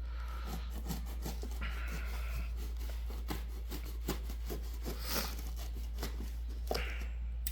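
A knife blade cutting and scraping through packing tape on a cardboard box: a run of small scratchy clicks, with a longer rasping stretch about two seconds in, over a steady low hum.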